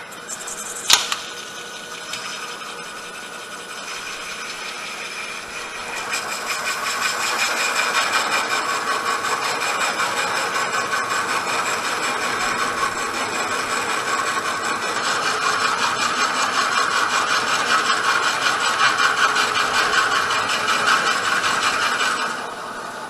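A cutting tool scraping into a bowl blank spinning on a Grizzly wood lathe, a steady rasping cut over the lathe's running. There is a sharp click about a second in, the cut grows louder about six seconds in, and it stops abruptly near the end.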